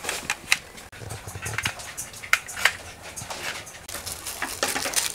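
Sharp plastic clicks and knocks as a light attachment is fitted and snapped onto the rail of a plastic M16-style rifle, the loudest about half a second in and twice more around the middle. A soft rustle rises near the end.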